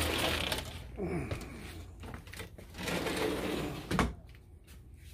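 Rustling and handling noise of a phone being carried and moved, with a single sharp knock or click about four seconds in.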